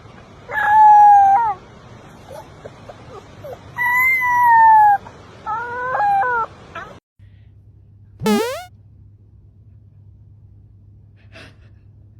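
A pet's high, drawn-out whining calls, about four of them in the first seven seconds, each wavering or sliding down in pitch. About eight seconds in comes one short, sharp, rising squeal.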